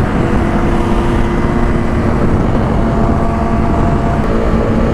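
Motorcycle cruising at a steady highway speed: an even engine drone under heavy wind rush on the rider's microphone.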